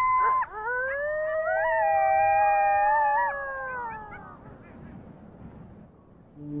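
Coyotes howling: one held howl, then several voices howling together at different pitches, fading out about four and a half seconds in.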